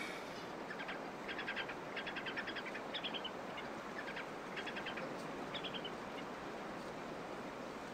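Faint short chirping trills from a small night-time animal, a handful of brief rapid-pulsed calls in the first six seconds or so, over a steady low hiss of night ambience.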